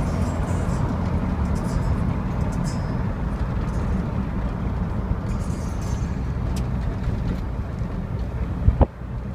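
Steady low road and engine rumble heard from inside a moving car, with one sharp knock near the end.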